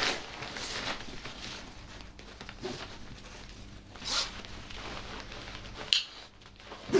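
Nylon compression straps being wrapped around a stuffed tent bag and drawn through their buckles, with the bag's fabric rustling. There are sharp zip-like rasps of webbing at the start, about four seconds in and about six seconds in.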